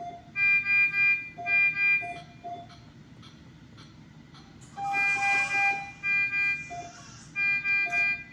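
A steady-pitched horn honking in short repeated toots, in bunches of two or three. The pitch never wavers, and there is a brief breathy hiss about five seconds in.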